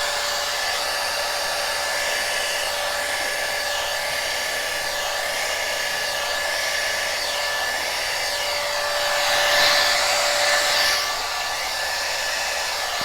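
Small handheld blow dryer running steadily on high: an even motor whine over rushing air, swelling louder for a moment about ten seconds in.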